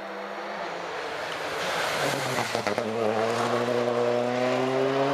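Rally car engine passing through a junction on a special stage. Its note drops about two seconds in and then holds steady as the car pulls away.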